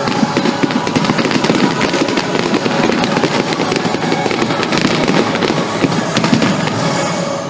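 Fireworks display in full swing: a dense, continuous barrage of crackling, popping and banging shells.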